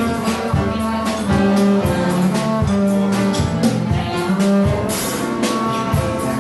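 Live acoustic jazz: a plucked upright double bass plays a moving low line, with cymbal strokes from a drum kit and held melody notes above.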